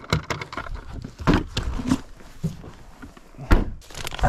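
Handling noises as rubber-coated work gloves are pulled on at a car's open trunk: rustling with several short knocks, and the loudest a sharp thump about three and a half seconds in.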